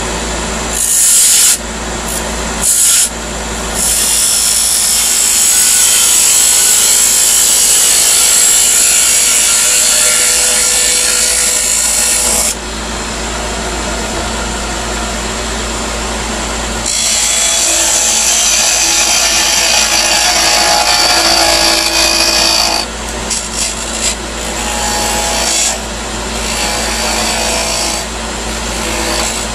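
Wood lathe running steadily while a parting tool cuts into the spinning wooden chess piece to part off its top. The cutting comes as a hiss in stretches: two brief touches in the first few seconds, a long cut of about eight seconds, a pause, a second long cut of about six seconds, then short touches near the end.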